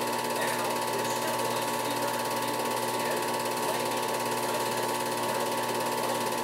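Film projector running, its film-advance mechanism clattering rapidly and evenly, with a steady tone underneath.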